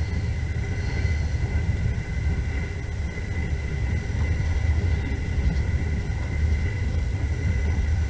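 Passenger train running, heard from inside the carriage: a steady low rumble with a thin, steady high tone above it.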